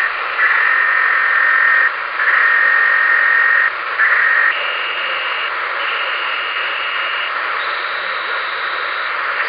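Amateur radio receiver on the 10-metre band giving off static hiss with an unidentified steady tone that keys on and off in pieces of about one to one and a half seconds. The tone steps up in pitch twice: three pieces at a low whistle, two higher, then one higher still near the end.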